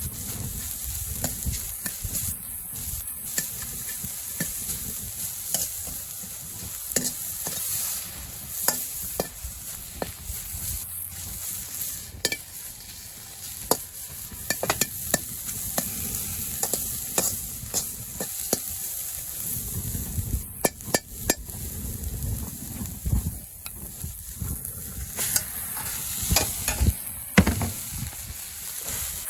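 Fried rice sizzling in a two-handled wok over a charcoal fire while it is stirred with a spatula, with frequent sharp clicks and scrapes of the spatula against the wok.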